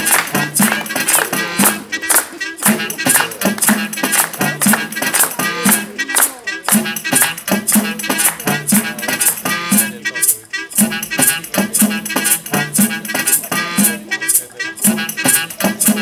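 Live music with a fast, steady beat of sharp percussive strokes over repeating low pitched notes, briefly thinning about ten seconds in.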